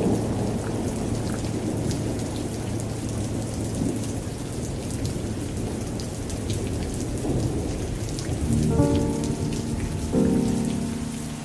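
Steady rain with a low rumble of thunder. Near the end, slow music comes in with ringing chords struck a little over a second apart.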